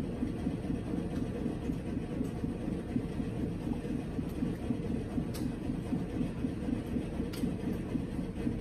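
A steady low rumble with a fast flutter in it, even in level throughout, with a few light clicks on top.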